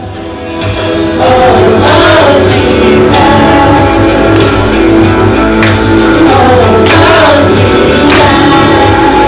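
A song with singing over instrumental backing and a steady beat, getting louder about a second in.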